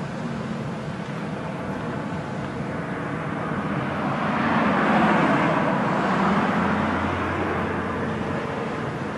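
Twin-engine jet airliner on approach with its landing gear down, a steady rushing jet noise with a low hum that swells to its loudest about halfway through and then eases off as the aircraft passes.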